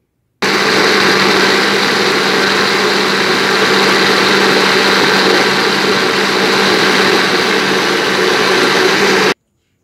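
Electric countertop blender running at a steady speed, blending pieces of fresh coconut with condensed milk, eggs and milk, a steady motor hum. It starts abruptly about half a second in and cuts off shortly before the end.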